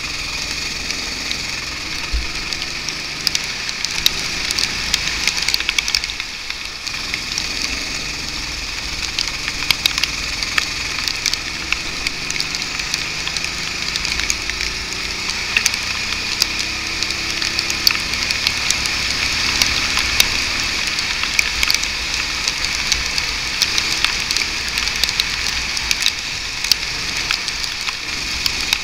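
Go-kart lapping a wet track, heard from its onboard camera: a steady hiss full of sharp crackles from water and spray hitting the camera housing. Under it, the kart's engine is faint and muffled, its pitch slowly rising and falling with the throttle through the corners.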